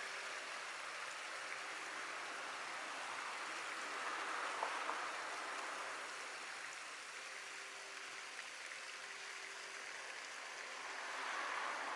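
Steady outdoor water hiss, like water washing against a concrete seawall, with a faint steady hum beneath it and a single small tap about four and a half seconds in.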